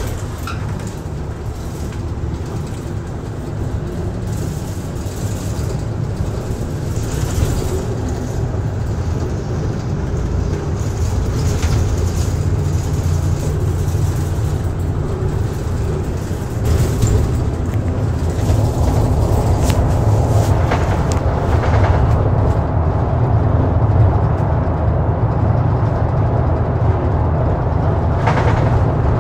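Ofunato Line BRT bus running along the road: a steady low engine drone and road noise with occasional short rattles, getting louder about two-thirds of the way through.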